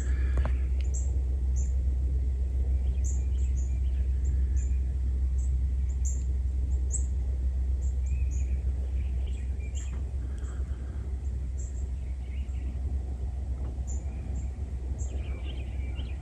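Songbirds chirping, short high chirps repeating every second or so, with some lower calls, over a steady low rumble.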